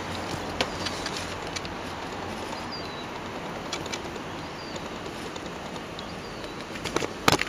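Outdoor ambience: a steady hiss of background noise with faint, short bird chirps now and then. A sharp knock and a few clicks come near the end.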